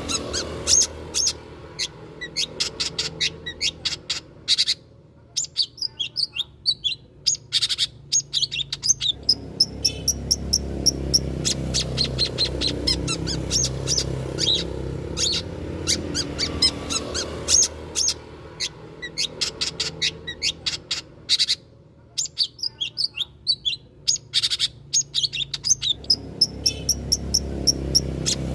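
Long-tailed shrike (cendet) singing: long runs of rapid, sharp, high chirps and chattering phrases, over a low background noise that drops away twice for a few seconds.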